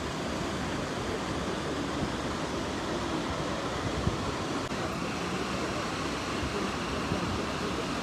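Steady rushing noise of muddy floodwater running down a rain-swollen riverbed, mixed with wind buffeting the microphone.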